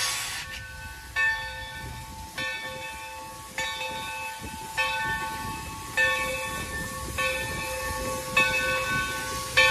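Steam locomotive No. 3025's bell ringing steadily at about one stroke every 1.2 seconds, a warning as the engine crosses a road. Under it is a low rumble of the train moving and some steam hiss.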